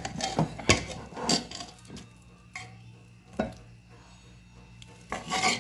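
A metal utensil clinking and scraping against a steel pan as chicken pieces are turned in thick masala: about six irregular knocks, with a longer scrape near the end, over a low steady hum.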